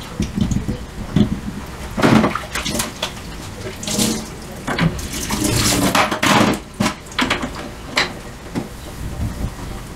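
Dishes being washed by hand in a stainless steel sink: tap water running and splashing, with irregular clinks and knocks of crockery and pots.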